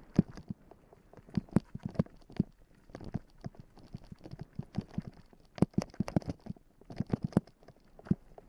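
Mountain bike rattling and clattering down a rocky, gravelly trail: irregular sharp knocks, several a second, as the wheels strike stones and the bike shakes.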